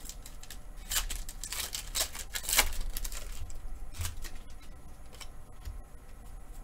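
Foil booster pack wrapper being torn open and crinkled: a run of crinkly rips starting about a second in, loudest near the three-second mark, then quieter rustling as the cards are handled.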